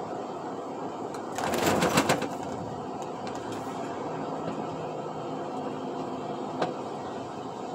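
Steady road and engine noise inside a moving truck's cab, with a brief loud clatter about a second and a half in and a single click near the end.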